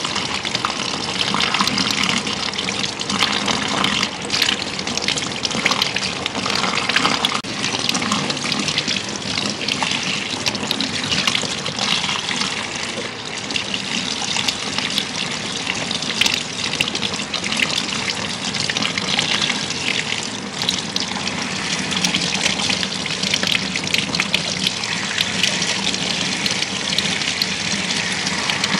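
Water spraying steadily from a handheld shower head onto a man's wet hair and into a salon wash basin.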